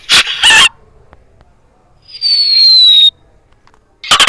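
A run of cartoon-style comedy sound effects. Two short, loud noisy bursts come first, then a falling whistle lasts about a second, and a rapid rattling series of pulses starts near the end.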